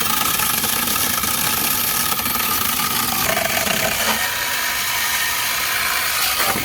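Mensela cordless brushless electric chainsaw running steadily, its chain cutting wood.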